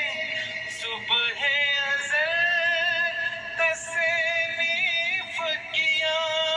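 A voice singing a devotional hamd (an Urdu hymn praising God) in long held notes with a wavering, ornamented pitch.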